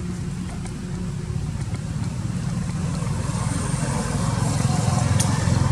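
Low engine rumble that grows louder over the last few seconds, with one sharp click about five seconds in.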